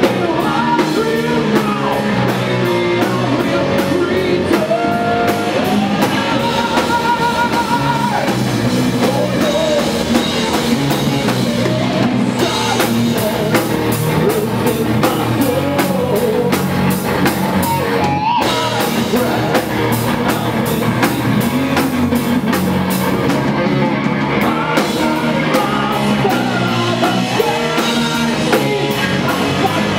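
Live metal band playing loudly: drum kit, electric guitar and bass guitar, with singing over them.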